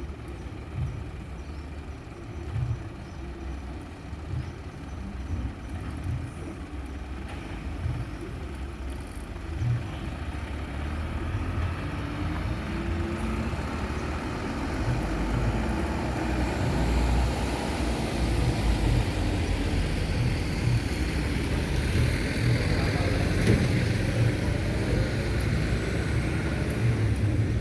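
Heavy vehicle engine running with a low rumble, growing louder about halfway through.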